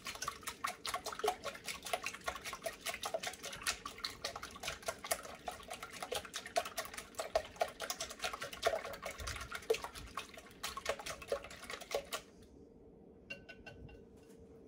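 Wire whisk beating raw eggs in a mixing bowl: quick, steady clicking and tapping of the wires against the bowl, stopping about twelve seconds in.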